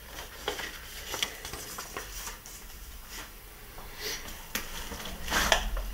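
Cardboard packaging being handled: scattered light clicks and rustles, with a louder rustle near the end.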